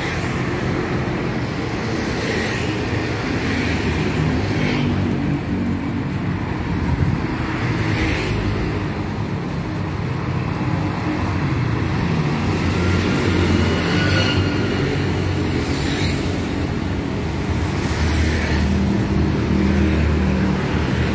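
Steady roadside traffic from passing cars and motorbikes, with an engine hum that swells twice as vehicles go by, about midway and near the end.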